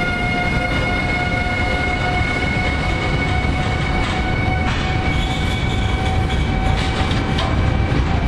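Electric freight train hauled by an ES64F4 Eurosprinter (E189) locomotive rolling slowly past, with a continuous low rumble and a steady high whine. A few wheel clacks over rail joints come in the second half.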